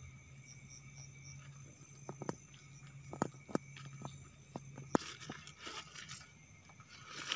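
Scattered clicks and knocks of close handling, turning to rustling from about five seconds in, over a steady chirring of crickets.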